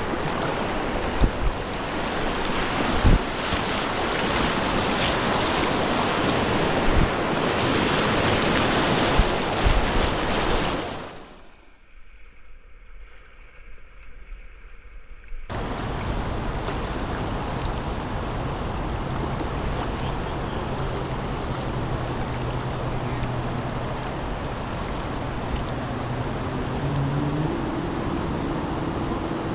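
Rushing river rapids and water splashing around the bow of a whitewater kayak, with wind on the microphone and a few sharp knocks in the first part. About eleven seconds in the sound turns muffled and much quieter for about four seconds, then the rush of water comes back steadier, with a low steady hum under it that rises in pitch near the end.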